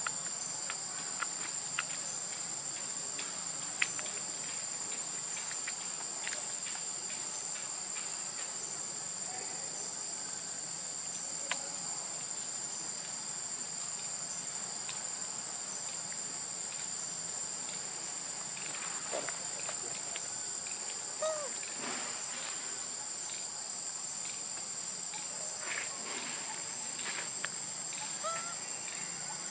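Steady high-pitched drone of a forest insect chorus, with scattered light clicks and rustles of dry leaf litter being picked through, and a couple of faint short chirps in the second half.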